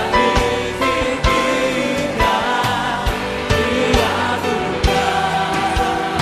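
Live gospel worship song, with sung vocals and choir over a band keeping a steady drum beat of about two hits a second.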